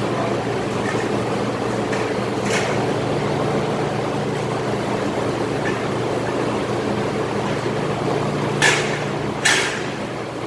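Steady low hum of running machinery, with sharp knocks from handling on steel scaffolding: a faint one about two and a half seconds in and two loud ones less than a second apart near the end.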